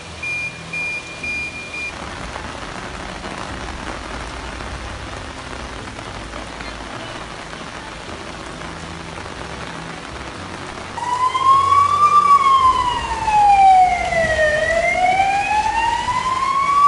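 Short regular electronic beeps for the first couple of seconds, then steady rain and water noise. From about two-thirds of the way in, a police car siren wails loudly, rising and falling slowly.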